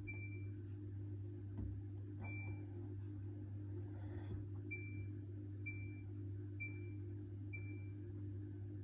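Control panel of a Hoover H-Wash 600 washing machine beeping: six short, identical high beeps, the last four about a second apart, of the kind given at each button press or turn of the program selector. A steady low hum runs underneath.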